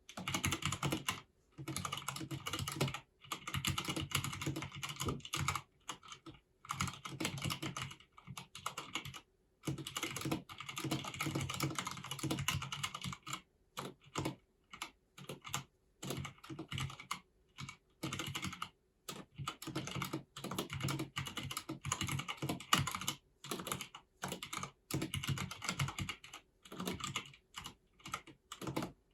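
Typing on a Filco Minila-R Convertible mechanical keyboard: rapid runs of key clicks in bursts of a second or two, with brief pauses between.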